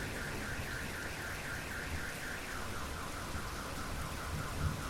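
Steady rain, with a rapidly pulsing warbling tone over it, about five pulses a second, which drops to a lower pitch about two and a half seconds in.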